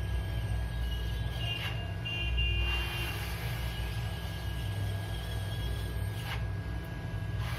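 Steady low hum with a thin steady whine above it, and two faint short clicks, one about two seconds in and one near the end.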